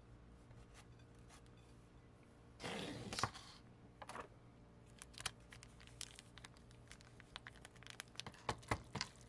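Packaging torn open in one short rip about three seconds in, followed by light crinkling and sharp clicks as a plastic sauce sachet is handled and squeezed out over cup noodles.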